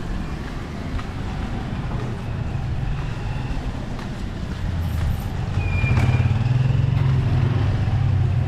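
A motor vehicle's engine running close by, growing louder about five and a half seconds in, with a short high tone about six seconds in.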